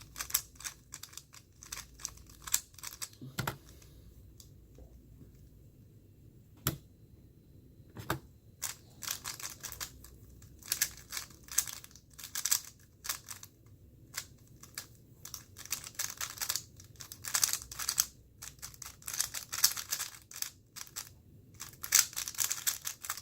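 Moyu Weilong GTS2M 3x3 speedcube being turned: a few clicks, a few seconds of near quiet, then from about eight seconds in a fast, near-continuous clatter of layer turns lasting some fifteen seconds, a full speedsolve.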